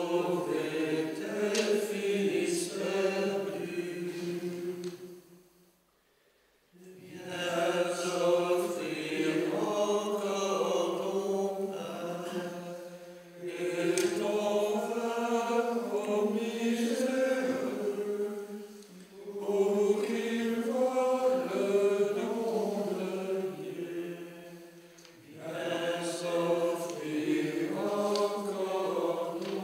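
A monks' choir singing a chant together in phrases of five or six seconds, with short breaks between them; the break about six seconds in drops almost to silence.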